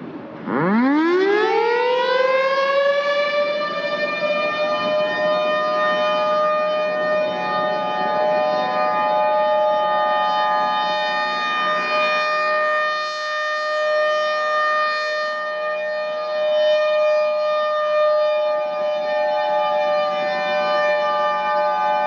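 Federal Thunderbolt 1000 outdoor warning siren winding up about half a second in, its pitch climbing fast and then levelling off into a steady wail. A few seconds in, a second, slightly higher siren tone joins and sounds along with it.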